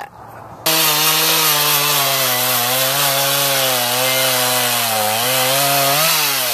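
Stihl gas chainsaw cutting into the end of a Douglas fir log, cutting in abruptly just under a second in and then running steadily at high speed, its pitch sagging briefly a few times as the chain loads up in the wood.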